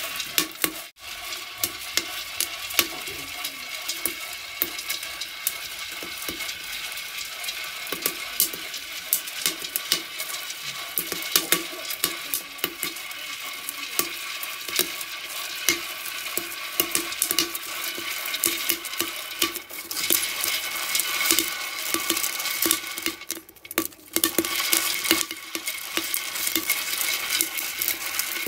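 Seeds being dry-roasted in a clay pot over a wood fire, stirred constantly with a bundle of bamboo strips: a steady scraping, rattling hiss full of sharp little clicks, with a brief lull about two-thirds through.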